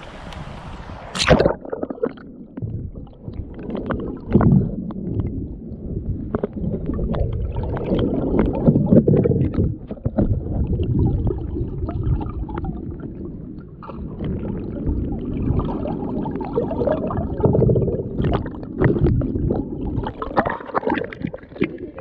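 Kayak on a creek: muffled water gurgling and sloshing around the hull, with scattered knocks of the paddle and boat. A sharp knock comes about a second in.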